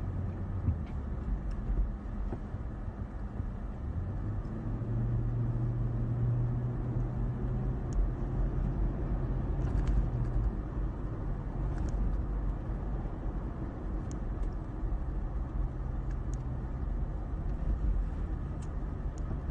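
Car engine and tyre noise heard from inside the cabin while driving, a steady low rumble. The engine hum rises in pitch about four seconds in and falls back about halfway through.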